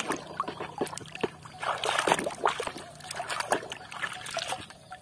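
Muddy water splashing and sloshing in a plastic basin as a hand swishes a small plastic toy truck through it, in quick irregular splashes.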